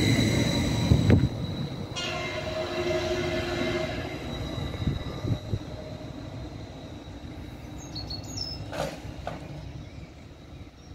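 Greater Anglia Class 755 train pulling away from the platform: loud at first, with a sudden drop about a second in, then fading as it recedes. A steady two-note tone holds for about two seconds from about two seconds in.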